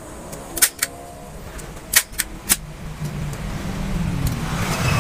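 Hand staple gun snapping staples into the rubber of a cut car tyre, five sharp snaps in the first two and a half seconds, with a low rumble growing louder in the second half.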